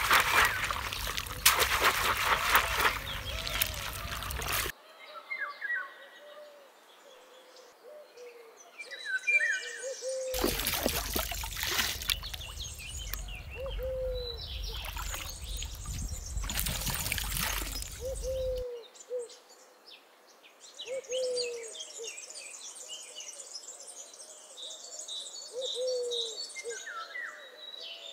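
Water rushing and splashing around a woven bamboo crab trap held in the flooded rice field, stopping about five seconds in, then a second long stretch of splashing water from about ten to eighteen seconds in. In the quieter gaps and after, birds call: a low call repeated every second or two, with higher chirps above it.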